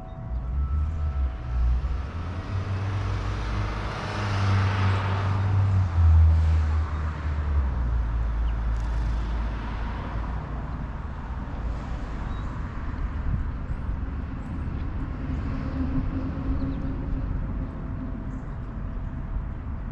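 A motor vehicle passing: a low engine rumble and road noise that build to a peak about five seconds in, then fade to a steady low background rumble.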